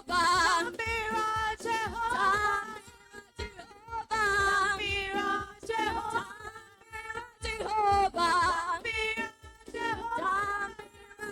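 Gospel praise-and-worship singing in Luganda over music. A lead voice sings long, wavering phrases with short breaks between them.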